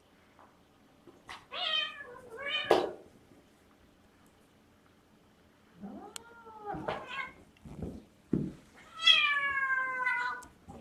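Siamese cat meowing and yowling: two short calls about two seconds in, a rising-and-falling call around six seconds, and a long, slightly falling yowl near the end, with short rough noisy bursts in between.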